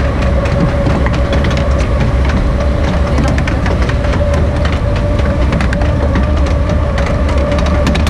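Log flume boat riding up the ride's lift: a steady mechanical rumble and whine with a constant run of sharp clicks and clacks from the lift mechanism.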